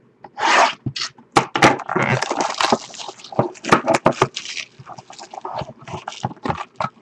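Cellophane shrink wrap being slit with a box cutter and torn off a trading-card box, a dense run of irregular crinkles and crackles, with the cardboard box lid handled near the end.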